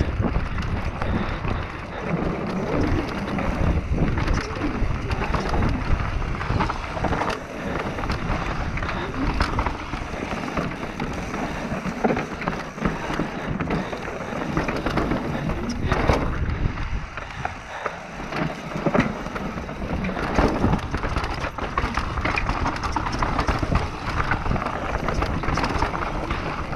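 Mountain bike ridden fast downhill on a rough dirt trail, heard from the camera on the bike or rider: continuous tyre roar and rattle with frequent knocks as the bike hits rocks and bumps.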